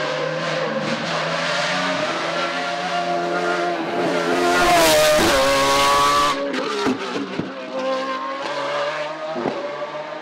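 Hillclimb race car engine running at high revs, loudest as it passes close about four to six seconds in, its pitch shifting through the gears before cutting off suddenly. Afterwards an engine note carries on with several sharp cracks.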